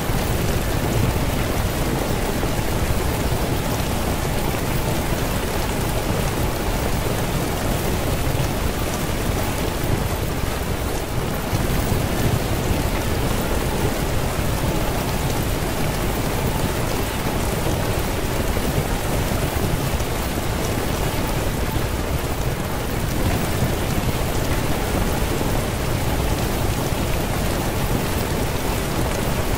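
Steady rain sound: a continuous even hiss with a low rumble underneath, unchanging throughout.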